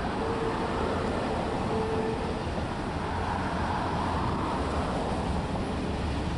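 Norfolk Southern double-stack intermodal freight train rolling past: the steady rumble and rattle of steel wheels on the rails and the well cars going by. A thin steady high tone sounds over it during the first couple of seconds.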